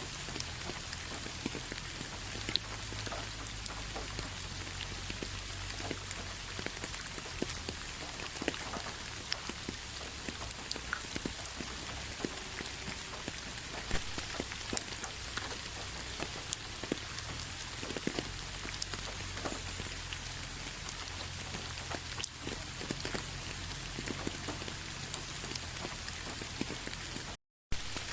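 Steady rain, an even hiss dotted with the sharp ticks of individual drops landing close by. The sound cuts out completely for a split second near the end, then resumes.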